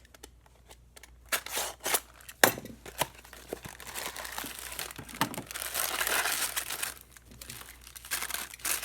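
A boxed chocolate cake mix being opened: the cardboard and the inner bag are torn and crinkled in irregular bursts with sharp crackles, busiest in the middle.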